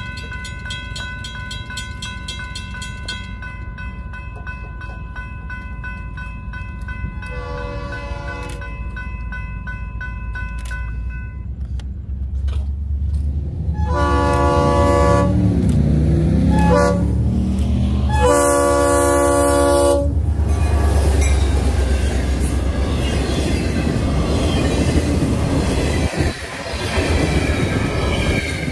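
Grade-crossing bells ringing while a Florida East Coast Railway train approaches. Its locomotive horn sounds the crossing signal, long, long, short, long, the first blast fainter and the last three loud and close. The train then passes close by with a loud steady rumble of locomotive and wheels on the rails.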